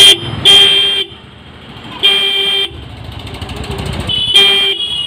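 Bosch electric disc car horn sounded in short, loud toots: the end of one blast right at the start, then three more, each about half a second long and a second or two apart.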